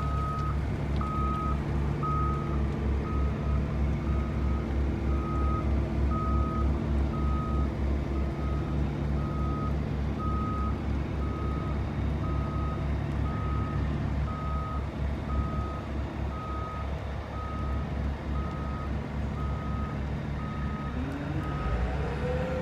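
Backup alarm on a Caterpillar AP655 tracked asphalt paver beeping steadily at an even pace over its diesel engine's low running rumble as the machine reverses off a lowboy trailer. Near the end a whine rises sharply in pitch.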